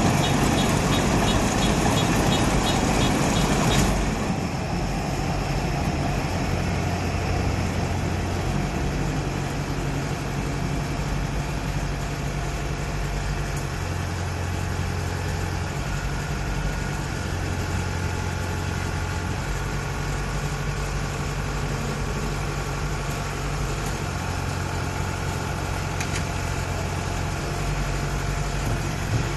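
Kubota 988Q combine harvester running. For the first few seconds it is louder, with a fast, even ticking. About four seconds in it drops to a quieter, steady engine note.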